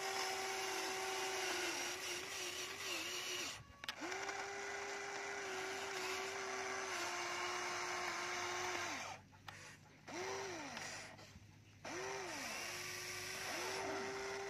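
Electric motors of a Huina radio-controlled excavator whining at a steady pitch as the boom and bucket dig. The whine cuts out briefly a few times, with short swoops up and down in pitch as a motor stops and starts again.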